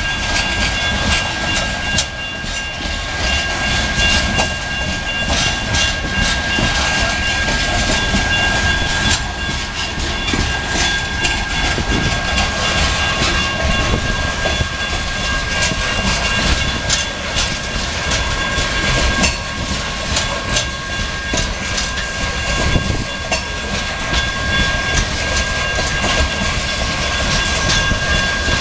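Loaded coal hopper cars of a freight train rolling past, their steel wheels clacking over the rails in a loud, continuous run of clicks over a steady rumble. A thin, steady high tone sits above it and fades about halfway through.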